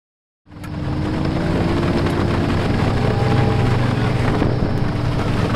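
A boat's engine running steadily, fading in about half a second in.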